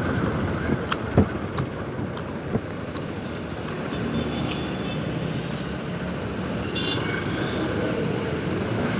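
Motorcycle riding, heard through a helmet-mounted wireless mic with noise cancellation on: steady engine, wind and road noise. A few short clicks come in the first three seconds.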